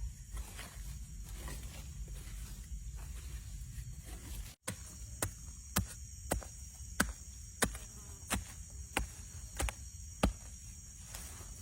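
Forest insects droning steadily at a high pitch, with a series of sharp knocks, about one and a half a second, starting after a brief dropout about halfway through.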